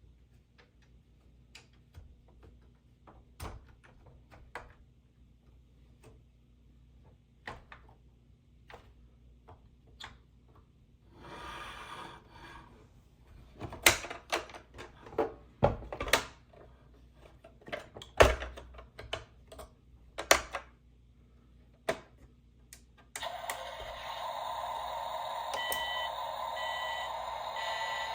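Scattered clicks and knocks of plastic toys being handled, loudest in the middle. Near the end a steady electronic sound starts suddenly, with short repeating beeps.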